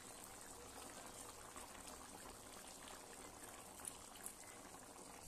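Faint bubbling of a thin potato-and-cauliflower curry gravy simmering at a boil in a steel kadai. A spoon clicks lightly against the pot a couple of times about four seconds in.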